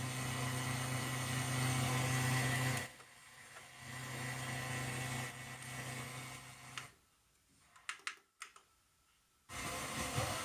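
Sony FH-B177 stereo system's FM tuner between stations: a steady low hum over hiss, which drops out for about a second and comes back. Then it goes almost silent with a few sharp clicks, and the hiss returns near the end.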